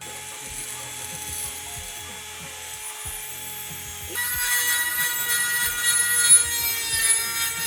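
Power tool cutting through a steel bar, giving a steady whine that jumps higher and louder about four seconds in as the cut takes load.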